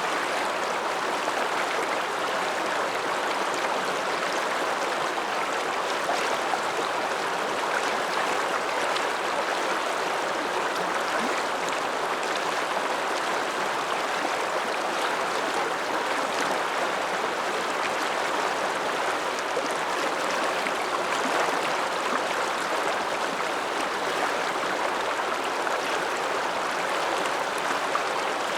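Alpine mountain river flowing, a steady, unbroken rushing of water.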